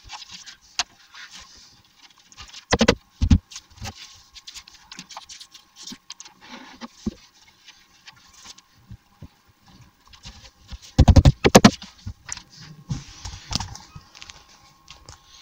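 Knocks and clatter of glued MDF drawer panels being handled and pushed together, with two loud knocks about three seconds in and a quick run of louder knocks about eleven seconds in.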